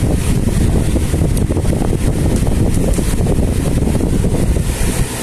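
Steady low rumble of air buffeting the microphone, like wind noise. It eases off right at the end.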